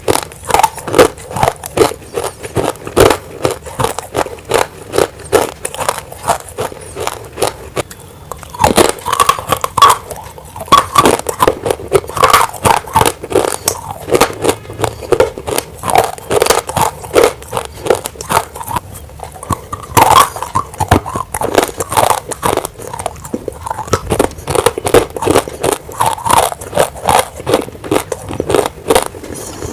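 Close-miked crunching and chewing of dry, roasted grey clay: a fast, uneven run of sharp crunches and crackles, a few per second.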